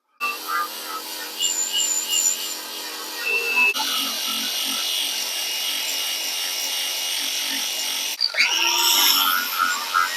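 A power tool abrading the steel cab corner of a squarebody GMC truck: a steady rasping hiss with faint high squeals. It stops and restarts abruptly about a third of the way in and again near the end.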